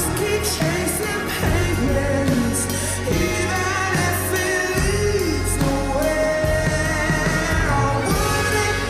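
Slowed-down pop song with heavy reverb: a sung vocal melody sliding between notes over a steady low bass line.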